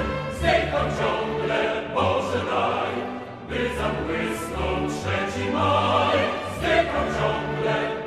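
Background music: an orchestral piece with choir, sustained chords over a steady bass, pausing between phrases about three and a half seconds in.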